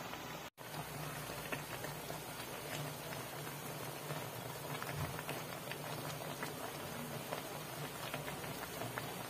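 A pot of chicken, sliced hotdogs and cabbage simmering in soy sauce, bubbling and crackling steadily with a faint patter, with a brief break about half a second in.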